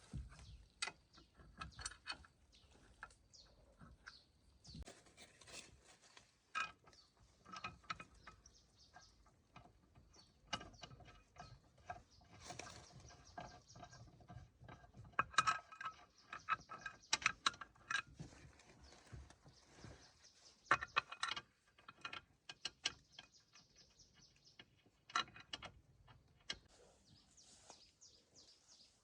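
Metal hand tools at work: irregular sharp clicks and clinks, some ringing briefly, with runs of rapid ratchet-like clicking.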